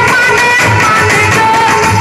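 Live Gujarati folk-devotional music: an electronic keyboard and harmonium carrying held melody notes over a steady hand-drum beat.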